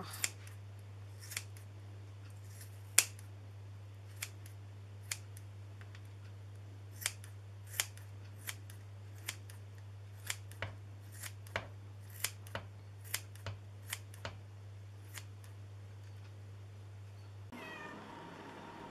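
Scissors snipping through thawed chicken stomachs: about twenty sharp, irregular snips, coming faster in the middle stretch and stopping a few seconds before the end, over a steady low hum.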